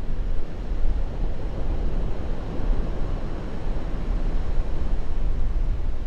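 Ocean surf breaking against rocks and washing up a sand-and-pebble beach: a continuous rushing with a heavy low rumble, swelling a little in the middle.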